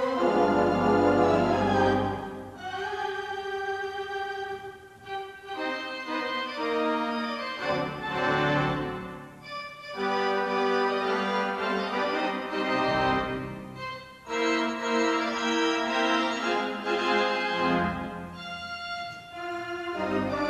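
Background music: held chords that change every couple of seconds, with short dips between phrases.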